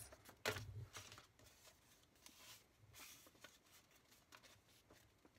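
Faint rustling and creasing of a sheet of paper being folded in half by hand into a paper airplane, with the clearest rustle about half a second in and softer ones after.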